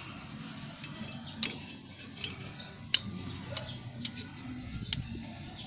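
Sharp metallic clicks, about six of them at irregular intervals, as needle-nose pliers press a drum-brake shoe hold-down spring and its retainer onto the pin.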